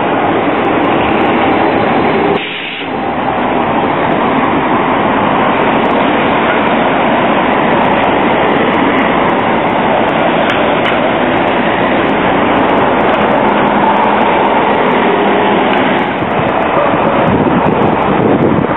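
CAF Urbos 3 low-floor tram running close by on street track, a steady rolling and motor noise. It breaks off briefly about two and a half seconds in and gives way to continuous street-traffic and tram noise as another tram approaches.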